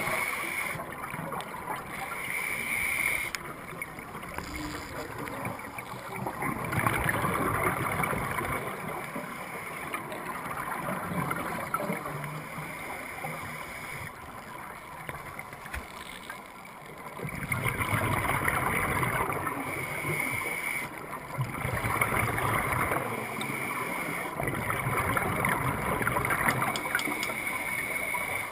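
Underwater sound of scuba regulators, with exhaled bubbles gurgling and hissing in surges that swell and fade every few seconds in time with the divers' breathing.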